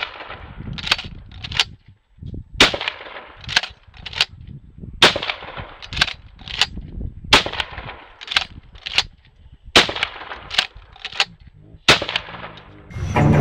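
12-gauge pump-action shotgun firing repeatedly, about one shot a second, each shot sharp with a short echo.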